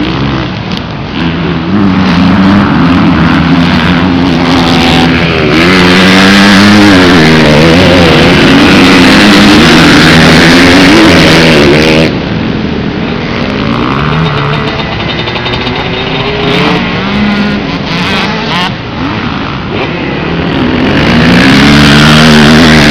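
Several motocross dirt bikes revving hard on the track, their engine pitch rising and falling again and again as they accelerate, shift and back off. Loudest when bikes pass close, about a third of the way in and again near the end.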